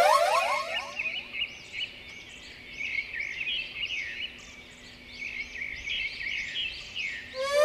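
Birdsong ambience: many small birds chirping and twittering steadily, with a loud run of quick rising whistles at the start and again near the end.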